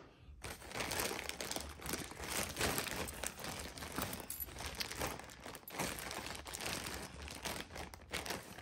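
Clear plastic bag crinkling and rustling as a hand digs through a mass of metal costume jewelry inside it, starting about half a second in with a short lull near the middle.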